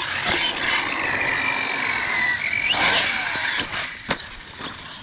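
Battery-powered radio-controlled car driving on asphalt: a steady electric motor whine over tyre rush, rising sharply about three seconds in, then dropping away, with a couple of sharp clicks after it.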